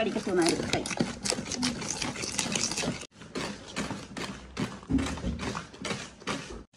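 Wooden spoon beating a thick butter, sugar and egg batter by hand in a large bowl: quick, rhythmic strokes of about three to four a second, the spoon knocking and scraping against the bowl. The strokes break off briefly about halfway.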